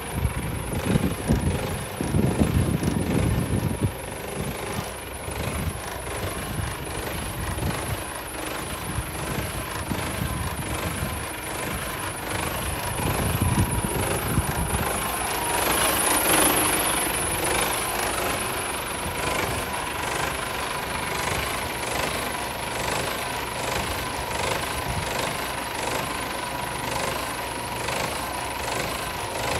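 Mercedes Actros 1840 tractor unit's 400 bhp Euro 6 diesel engine idling steadily, with a few heavier low rumbles near the start and again about halfway through.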